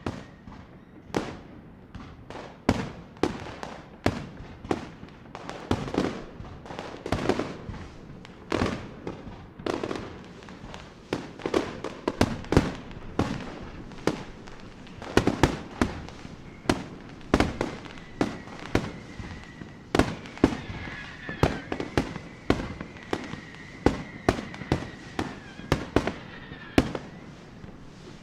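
Fireworks sound effects: a steady run of sharp bangs, about one or two a second, with crackling in between. A high whistle sounds through the bangs from about halfway to near the end.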